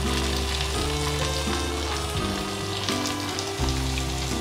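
Oil sizzling steadily in a frying pan as short pasta fries in it, with background music of slow, held notes underneath.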